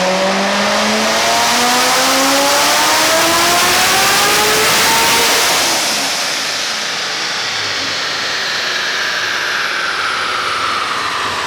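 ProCharger-supercharged C7 Corvette Z06 V8 making a full-throttle dyno pull on pump gas, its pitch climbing steadily for about five seconds. Then the throttle closes, and it coasts down with a high whine falling away.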